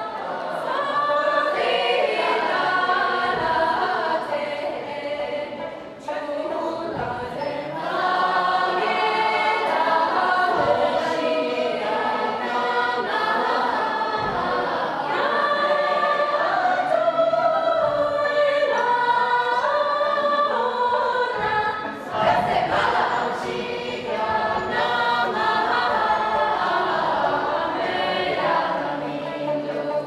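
A group of voices singing a Tibetan song together in a steady, continuous line, pausing briefly about six seconds in and again a little past twenty seconds.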